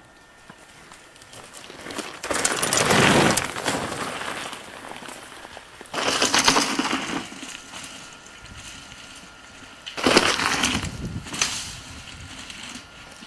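Mountain bike tyres crunching over loose dirt and gravel as riders pass close by, three times, about four seconds apart.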